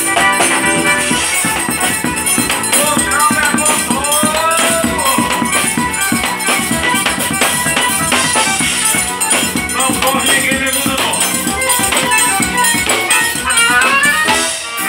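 Live forró band playing loud and steady: electric bass, accordion and fast, dense percussion.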